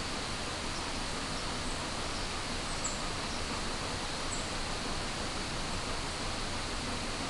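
Steady woodland ambience: an even hiss with a faint, thin insect drone, and a couple of short, faint high chirps about three and four and a half seconds in.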